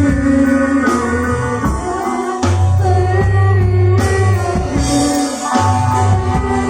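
Live rock band playing a song: guitar, bass and drum kit, with singing over it.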